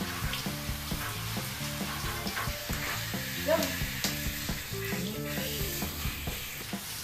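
Water spraying from a shower head in a steady hiss, with background music playing under it.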